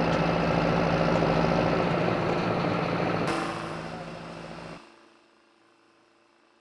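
John Deere 6420S tractor's turbo diesel engine running steadily. About three seconds in its sound thins and fades, then cuts off sharply near five seconds, leaving near silence.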